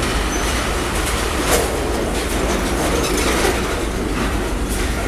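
Freight train of tank cars rolling slowly past at close range: a steady rumble of steel wheels on the rails, with a sharp clank about a second and a half in and another near the end.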